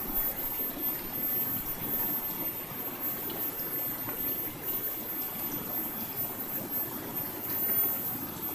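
River water flowing steadily past, an even rushing with no breaks.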